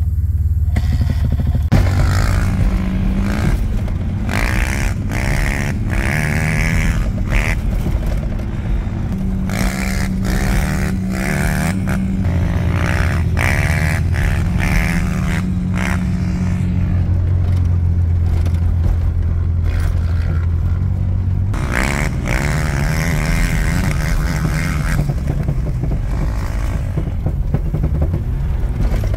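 An off-road vehicle engine running hard while riding, its pitch stepping up and down with throttle and gear changes, with repeated bursts of rushing noise.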